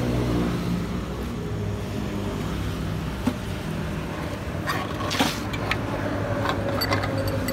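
Steady low mechanical hum, like a motor running, with a few short clicks and knocks about 3 and 5 seconds in.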